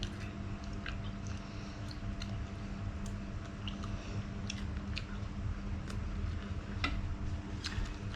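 A person chewing food close to the microphone, with irregular wet mouth clicks and smacks, over a steady low hum.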